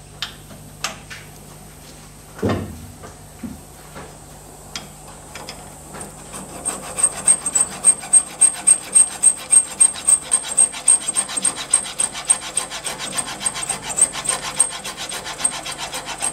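A few clicks and a knock as the work is turned in the collet and a file is set on the filing rest's rollers, then a used hand smooth file rasping dry across a small metal rod in rapid, even back-and-forth strokes. The strokes grow weaker in the last few seconds as the file stops cutting the flat and only rubs on the rollers and the vertical edge.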